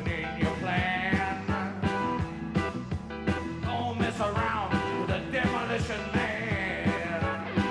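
Live rock band playing with a steady drum beat, bass and electric guitar, a lead line bending in pitch over it.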